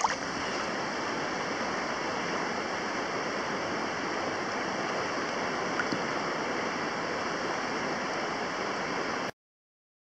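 Shallow river water running over gravel close to the microphone, a steady rushing that cuts off abruptly about nine seconds in.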